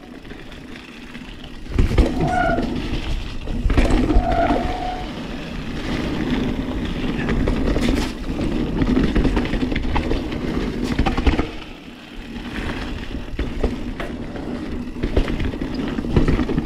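Santa Cruz Hightower 29er mountain bike descending a dirt and gravel trail at speed: tyres rolling and scrubbing over dirt, the frame and drivetrain rattling over bumps, and wind buffeting the microphone. A couple of short squeals from the disc brakes in the first few seconds.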